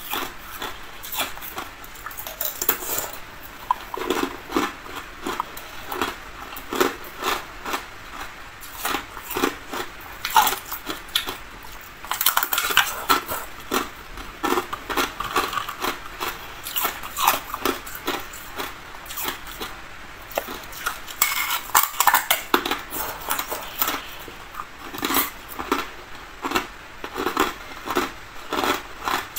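Thin, clear ice being bitten and chewed: a dense run of irregular sharp cracks and crunches, several a second.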